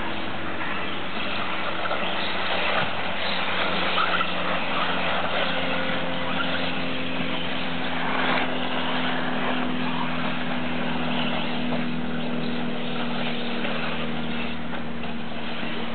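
Brushless electric 4WD RC off-road buggies racing on a track: a steady mix of motor whine and tyre noise.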